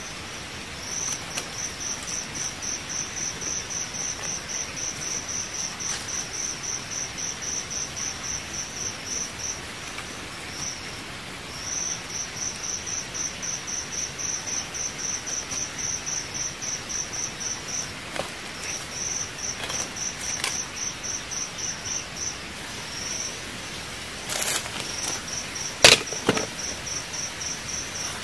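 Insect chirping in fast, even pulses with a few short breaks. A few sharp clicks come near the end, one of them loud.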